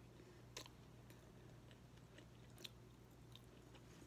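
Faint chewing of a mouthful of a rice bowl, with a few short soft clicks, over a low steady hum.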